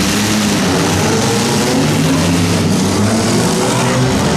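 Six-cylinder demolition derby car engines running and revving together, loud and continuous.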